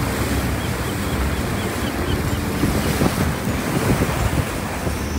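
Wind buffeting the microphone over the rush of sea water past a moving boat, with a low rumble underneath.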